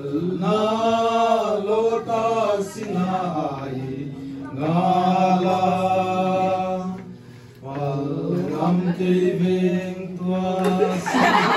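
Several voices chanting together without instruments, in three long phrases of held, slowly bending notes with short breaks between them. Near the end, talk breaks in over the chant.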